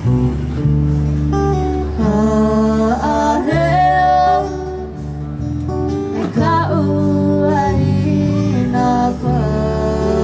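Acoustic guitar strummed under a singing voice that holds long notes and slides up and down in pitch, about three and a half and again about six and a half seconds in.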